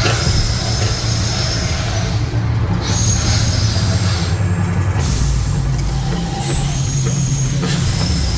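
Mirage volcano attraction's eruption effects: several surges of loud hissing over a steady deep rumble.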